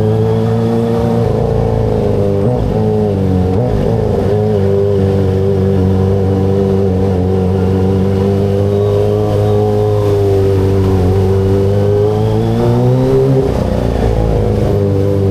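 Kawasaki ZX-25RR's 250 cc inline-four engine running at fairly steady revs while riding. Its pitch dips briefly about three seconds in and again near the end, then comes back up.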